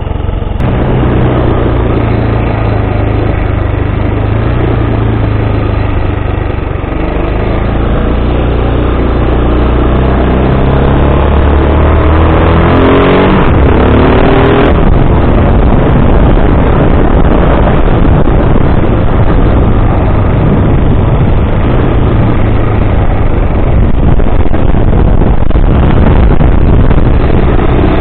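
Bashan 250 quad's 250 cc single-cylinder engine running while riding, its note rising and falling with the throttle; about thirteen seconds in it revs up steeply, then drops back.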